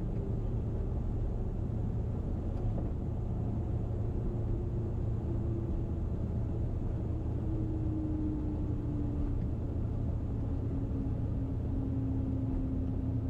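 Cirrus SR22T's turbocharged six-cylinder engine and propeller running steadily at low power while taxiing. A faint whine glides slowly down in pitch.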